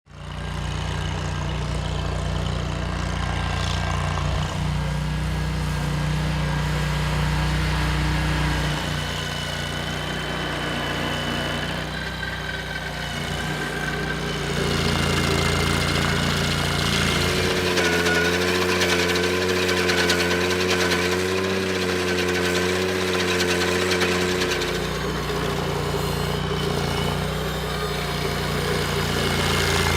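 Ventrac compact tractor engine running steadily with its stump grinder attachment. Its note shifts and wavers in pitch between about 17 and 25 seconds in.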